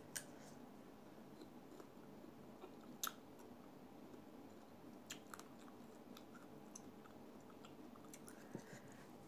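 Faint chewing of soft mango slices, with a few small mouth clicks, the sharpest about three seconds in.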